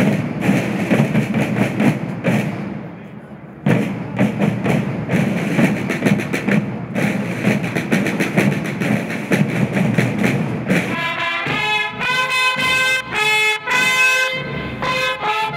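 Parade drums rolling and beating, with a brief drop about three seconds in. About two-thirds of the way through, herald trumpets come in with held notes over the drumbeats.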